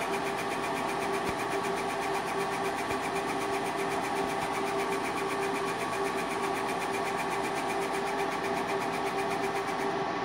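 Trotec Speedy 300 laser engraver raster-engraving: the head shuttles rapidly back and forth with a fast, even rhythm over a steady machine hum. The rhythm stops near the end as the head moves on.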